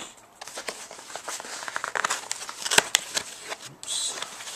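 Cardboard mailer being pulled open and handled: a run of small crackles and scrapes of card, with one sharp snap a little under three seconds in and a short hissing scrape near the end.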